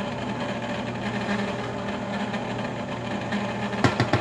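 Cuisinart ICE-30R ice cream maker's electric motor running steadily, turning the frozen bowl as the custard churns. A few sharp knocks come near the end.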